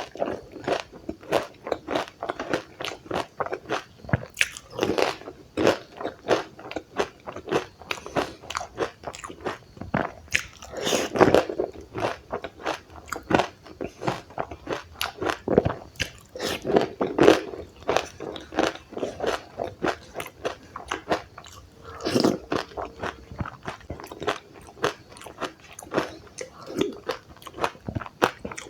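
Close-up crunching and chewing of dahi puri: crisp puri shells cracking between the teeth, a dense crackle of chewing with louder bites every few seconds.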